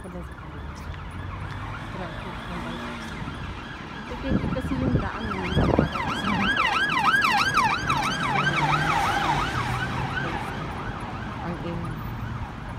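Road emergency vehicle siren sounding a fast yelp of about three to four sweeps a second over traffic noise. It grows from a faint wail, is loudest around the middle and then fades as the vehicle passes. A few low thumps come just before it peaks.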